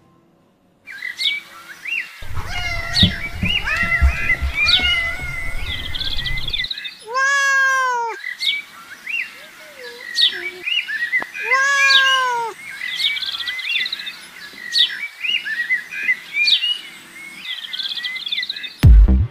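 Small birds chirping and twittering throughout, with a domestic cat meowing twice, each call rising then falling in pitch, about seven and twelve seconds in. A low rumble runs from about two to seven seconds in.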